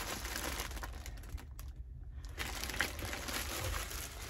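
Crinkling and rustling of bagged packaging as bags of cosmetics are handled and lifted out of a box, with a short lull about a second and a half in.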